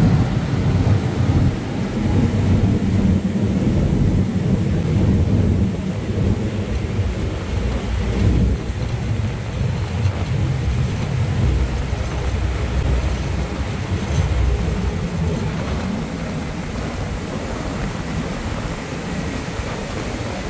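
Steady low rumble and rushing noise of a harbour ferry under way, heard from the open stern deck: wind buffeting the microphone over the engine drone and the churning wake. It eases slightly after about fifteen seconds.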